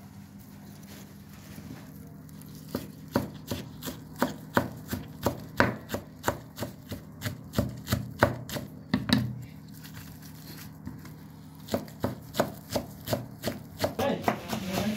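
Kitchen knife chopping green onions on a wooden cutting board: a steady run of sharp knocks on the board, about three a second. The chopping starts a few seconds in, pauses for about two seconds past the middle, then resumes.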